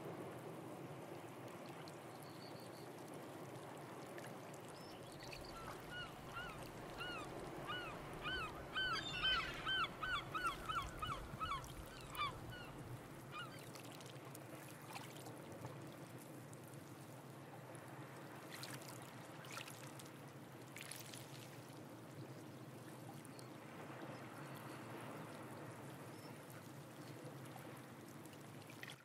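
Steady wash of the sea and water trickling among rocks, with a bird calling a quick run of repeated notes that speed up, from about a fifth of the way in until a little before the middle.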